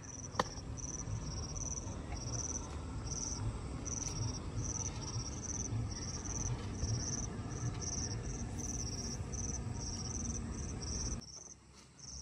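Insects chirping, a high-pitched pulse repeating about twice a second, over a low rumble that cuts off suddenly near the end. A single sharp click sounds about half a second in.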